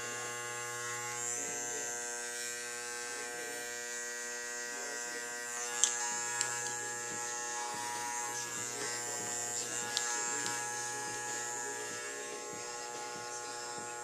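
Andis Master magnetic-motor hair clippers running with a steady electric buzz, with a few light clicks about six and ten seconds in.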